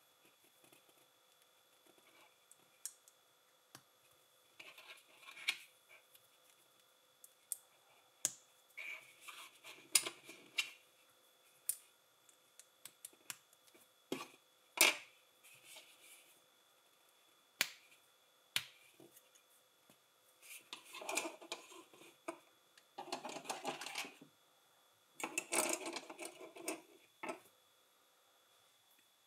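Plastic LEGO bricks being handled and pressed together: scattered sharp clicks and snaps, with a few longer stretches of handling noise in the second half.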